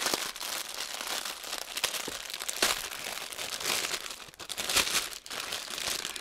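Plastic packaging crinkling and rustling as hands handle a large clear bag packed with small zip-lock bags of diamond painting drills, with a brief lull a little after four seconds.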